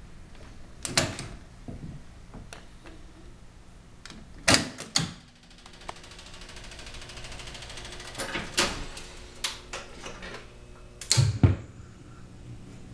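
A 1957 Seeburg jukebox's Select-O-Matic mechanism selecting and loading a record. There is a sharp click as a selection key is pressed about a second in, then two loud clunks. The mechanism whirs steadily for a couple of seconds, then more clunks and knocks come, the loudest pair near the end, as the record is loaded for play.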